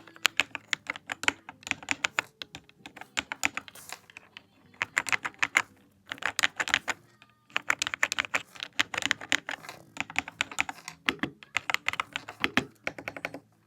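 Typing on a Sermon 400Pro 75% mechanical keyboard: quick runs of key clicks in bursts, with short pauses between them.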